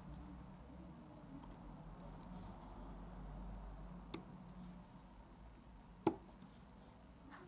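Small metal tool scraping and clicking against the aperture assembly of a Tair-11 lens as the ring holding the aperture blades is worked loose. Faint handling noise, with a light click about four seconds in and a sharper, louder click about six seconds in.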